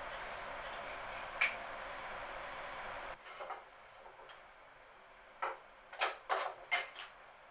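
A steady hiss that cuts off about three seconds in, then a few light, sharp knocks and clicks of wood and tools being handled and set down on a workbench.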